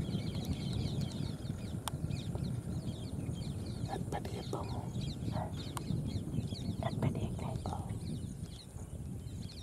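Birds calling: a dense run of rapid high chirps throughout, with a few short, lower clucking calls between about four and eight seconds in, over a steady low rumble.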